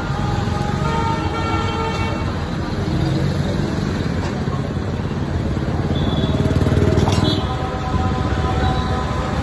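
Busy street traffic: engines running with vehicle horns sounding now and then.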